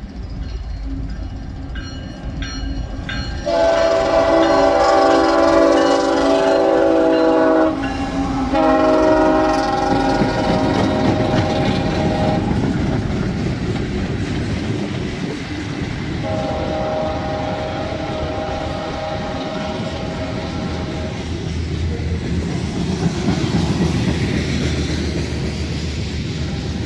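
The air horn of a Ferromex GE ES44AC diesel locomotive sounds three long blasts, a chord the uploader calls ugly and worn-out. Under and after the blasts, the locomotives and then the freight cars rumble and clatter past on the rails.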